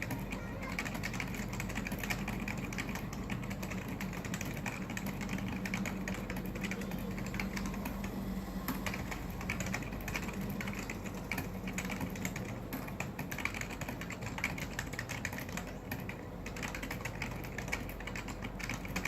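Continuous typing on a KBParadise V60 mechanical keyboard with Matias Quiet Click switches: a dense, unbroken run of key clicks.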